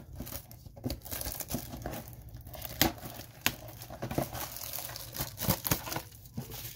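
Plastic shrink wrap being torn and crumpled off a sealed cardboard trading-card box: irregular crinkling with a few sharp snaps, about three seconds in.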